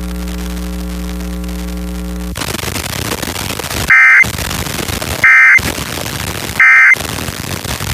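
Emergency Alert System End-of-Message signal: three short, loud, buzzy SAME data bursts about 1.3 seconds apart, closing the required monthly test. Before them a steady electrical hum gives way to static hiss about two seconds in.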